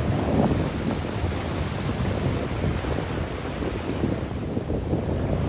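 Ocean surf washing onto a pebble beach, with wind buffeting the phone's microphone in a steady low rumble.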